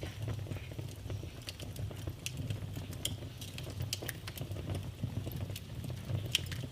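Wood fire crackling: irregular sharp pops and snaps over a steady low rumble of flame.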